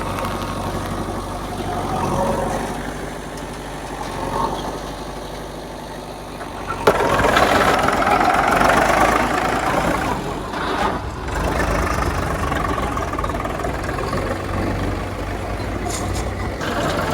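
Heavy diesel engine running at a steady speed. About seven seconds in there is one sharp knock, and the engine then sounds louder and rougher, as if working under load.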